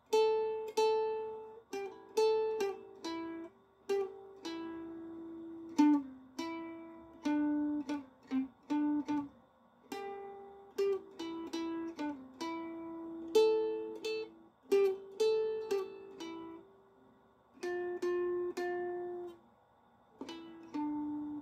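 A slow melody of single notes plucked on a ukulele-like string instrument, each note ringing out and fading before the next, with a brief pause near the end.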